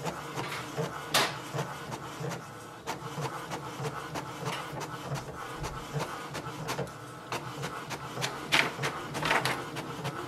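HP DeskJet 3772 inkjet printer printing a copy: the print carriage shuttles and the sheet feeds out in a steady, fast pulsing mechanical run. Sharp clicks come about a second in and twice near the end.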